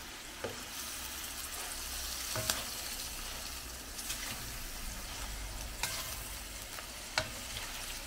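Giant freshwater prawns sizzling in hot oil with garlic and ginger in a stainless steel wok, with about five sharp clinks of a spoon against the pan as the prawns are turned over.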